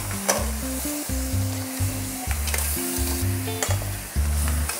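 Crab pieces sizzling as they are stir-fried in curry sauce in a stainless steel pot, tossed with two metal slotted spatulas that click sharply against the pot now and then. Background music with a stepping bass line plays underneath.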